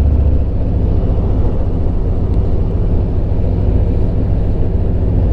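Harley-Davidson Road King's Milwaukee-Eight V-twin running at road speed, heard from the saddle with wind rush. Its deep low rumble eases a little about half a second in.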